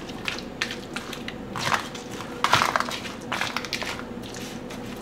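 A spoon stirring mixed vegetables in a disposable aluminium foil pan: irregular scraping and crinkling strokes, one louder stroke about halfway through.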